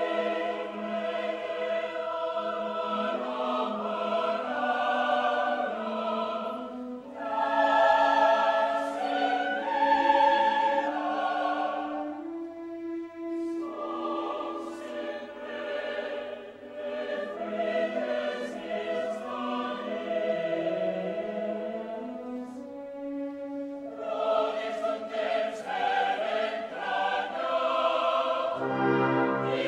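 Large mixed choir singing a classical cantata in Valencian, accompanied by a symphonic wind band. The sung phrases thin out twice, leaving a held low note, then swell again.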